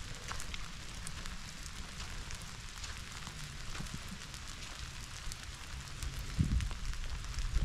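Steady rain falling, with many scattered sharp raindrop ticks. A few low rumbling bursts come near the end.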